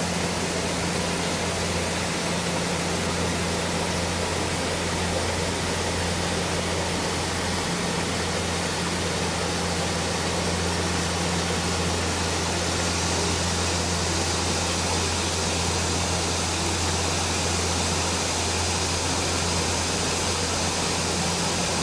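Steady outdoor noise: an even hiss with a low, steady hum underneath; the hiss grows a little brighter about halfway through.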